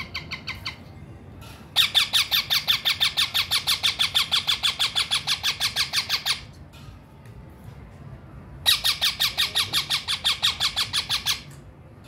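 Young green parrot chicks giving rapid, evenly repeated squawks, about eight a second, in two long runs, typical of chicks begging while being hand-fed.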